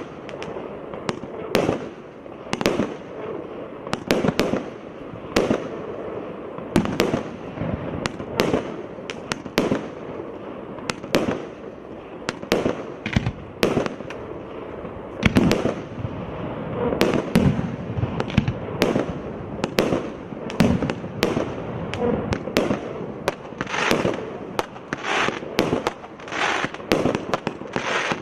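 A 99-shot fireworks cake firing in rapid succession: a steady run of launch thumps and bursting shells, several a second, with crackle between the reports.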